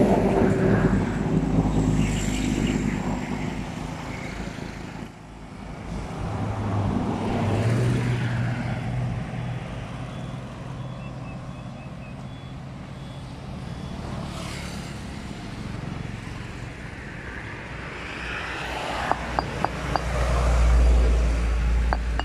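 Motor vehicles passing on a nearby road, engines swelling and fading several times: loudest at the start, again about a third of the way in, and near the end. A few sharp clicks come just before the last pass.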